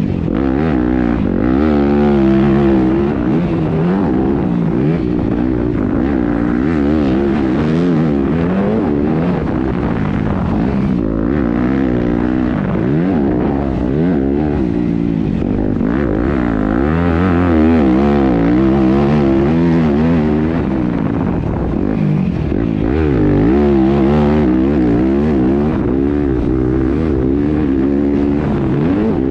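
2019 Yamaha YZ250F motocross bike's single-cylinder four-stroke engine, revving up and down again and again as the throttle is worked through the laps, the pitch rising and falling every second or two.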